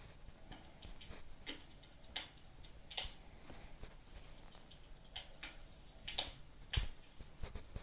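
Wood fire crackling: irregular pops and snaps over a soft low rumble, the sharpest pop near the end.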